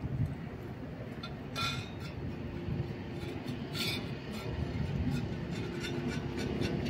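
Stray cats eating wet cat food from metal plates, with two sharp clinks of a metal dish, about one and a half and about four seconds in, and small ticks of eating over a steady low rumble.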